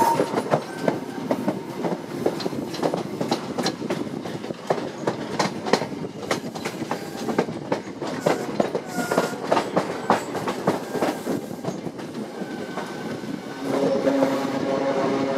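Wheels of a moving passenger train clattering over points and rail joints, heard from an open coach window: many sharp clicks at uneven spacing. A steady droning tone joins near the end.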